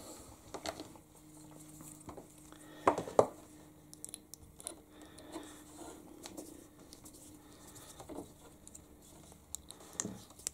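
Light scraping and clicking of a thin hand tool being worked into the hole of a small plastic servo arm to enlarge it so the push rod fits, with a couple of sharper knocks about three seconds in.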